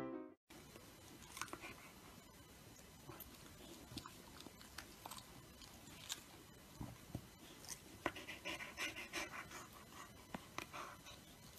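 Faint small clicks and soft rustles from a Samoyed being stroked on the head: fur rubbing and the dog's mouth sounds, with a denser run about eight seconds in, around its yawn.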